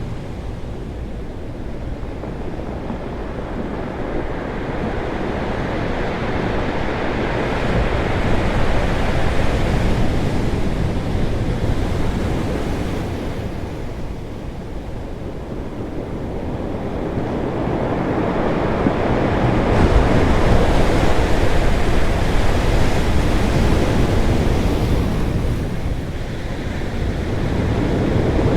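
Ocean waves crashing on rocks: a steady rushing surf that swells and ebbs, with two big surges, one about a third of the way in and a louder one past the middle, and another building near the end.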